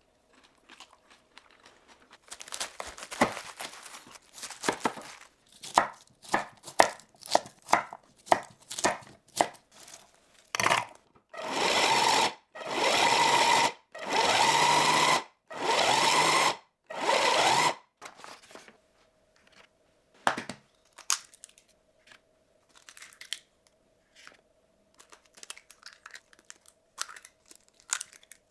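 Kitchen food-preparation handling noises. First comes a run of crisp crackling clicks and taps, then five evenly spaced noisy strokes of about a second each, then a few scattered light taps.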